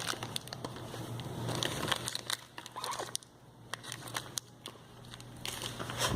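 Irregular crinkling and small clicks as the soapy glue slime is worked and stirred, with a quieter stretch about halfway through.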